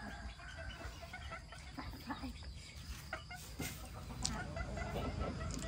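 Chickens clucking in short scattered calls, with a sharp click about four seconds in.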